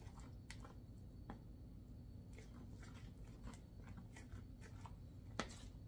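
A spoon stirring thick fudge in a stainless steel bowl: faint, irregular scrapes and clicks of the spoon against the bowl, with one sharper knock about five and a half seconds in.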